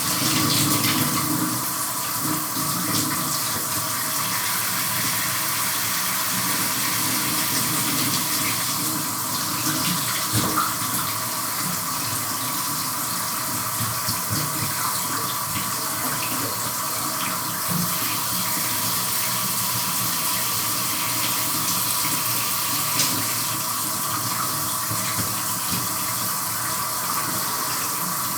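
Shower running steadily, water spraying and splashing as someone showers, with a few small knocks and level changes, notably around ten seconds in.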